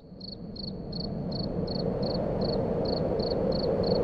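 Signal-loss static: a hiss that swells up over about the first second and then holds steady, with a thin high beep pulsing about three times a second over it.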